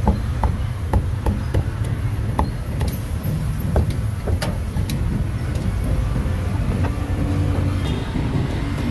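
Heavy cleaver chopping roast meat on a thick round wooden chopping block: sharp irregular chops, about two a second, thinning out after about five seconds. Under them runs a steady low rumble.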